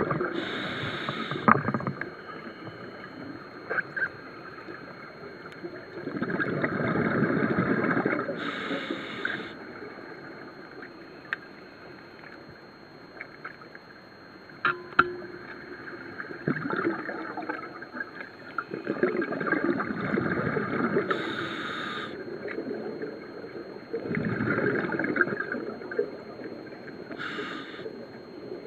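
Scuba diver breathing through a regulator underwater: a short hiss on each inhale, then a gurgling rush of exhaled bubbles lasting a second or two, four or five breaths in all.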